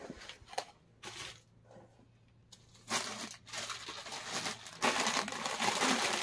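Clear plastic packaging and fabric rustling and crinkling as a suit is handled and bagged: a few brief rustles at first, then steady crinkling from about halfway through, getting louder near the end.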